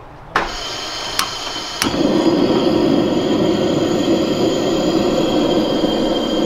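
Gas camp stove burner being lit: the gas hisses as the knob is opened, a lighter clicks three times, and on the third click, about two seconds in, the burner catches and then burns with a steady rushing roar.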